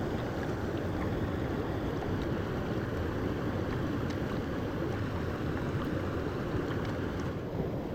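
Stream water running steadily over stones in a shallow creek.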